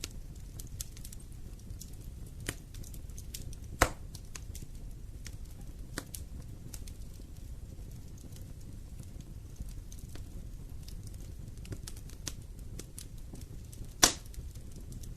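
Wood fire in a fireplace crackling with irregular small snaps and two louder pops, one about four seconds in and one near the end, over a low steady rumble of the flames.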